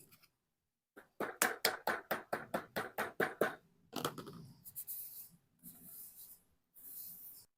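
Vinyl sheet being cut: a quick run of short cutting strokes, about five a second, followed by a few longer scraping cuts.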